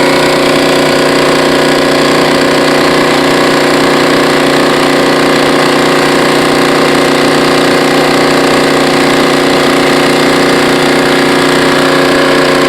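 Pressure washer running steadily, its engine holding one even hum over the hiss of water spraying from a surface cleaner onto the concrete driveway.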